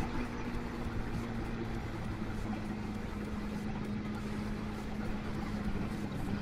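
Motorcycle engine running at low, steady revs, its pitch dipping slightly about two and a half seconds in, with road and wind noise underneath.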